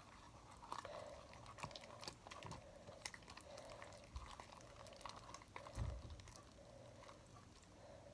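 Glue-and-Tide slime being stirred in a bowl with a popsicle stick: faint, sticky stirring strokes with small clicks, a little more than one a second, as the slime starts to come together.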